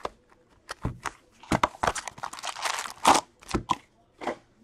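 Hockey card packaging being torn open and crinkled: an irregular run of sharp crackles and rustles as a box or pack of cards is unwrapped.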